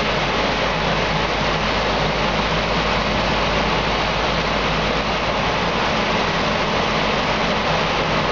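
Diesel engine of a Link-Belt tracked excavator running at a steady idle: a constant low hum under a dense, even rush of engine noise.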